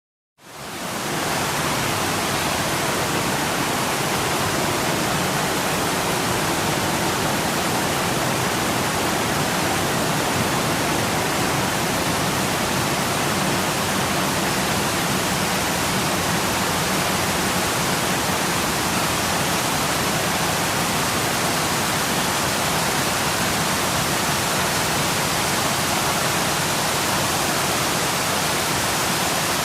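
Waterfall: a steady, dense rush of falling water that fades in over the first second and then holds even.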